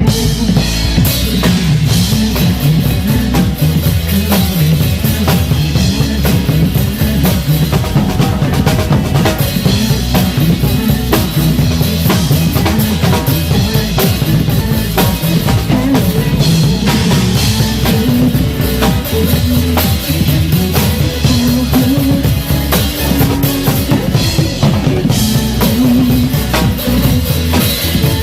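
Drum kit played live over recorded pop music: bass drum and snare hits keep up a continuous beat throughout.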